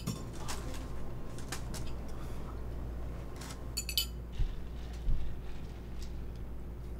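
Cutlery and dishes clinking at a dinner table: scattered light clinks of a utensil on a plate and glassware, with a quick cluster of clinks about four seconds in and a couple of soft low knocks after it.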